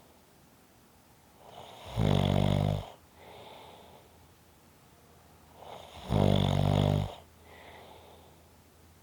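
A sleeping person snoring: two loud, low snores, each about a second long and about four seconds apart, each followed by a softer breath.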